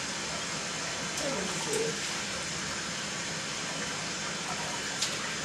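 Sink tap running steadily, with water splashing as a newborn baby's hair is rinsed.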